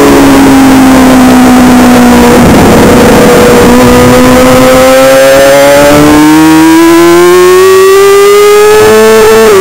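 Onboard sound of a Suzuki GSX-R600's inline-four engine at high revs, very loud with wind rush on the microphone. The pitch holds and eases slightly through the corner, is briefly swamped by rushing noise about two and a half seconds in, then climbs steadily as the bike accelerates, dipping briefly near the end at an upshift.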